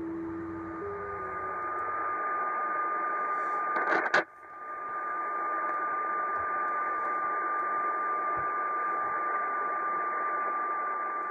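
Tecsun PL880 shortwave receiver: the stepping tones of a digital-mode signal fade out in the first second, then steady receiver hiss with one continuous tone. About four seconds in, a sharp static crash breaks through, lightning interference.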